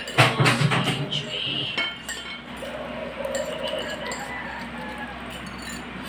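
Metal forks clinking and scraping against plates as spicy instant noodles are eaten and slurped. The clinks are sharpest and most frequent in the first two seconds, then the eating sounds go on more softly.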